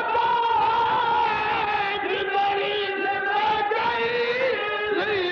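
A man's voice chanting a verse of mourning poetry in long, held, wavering notes, in the sung style of a majlis recitation.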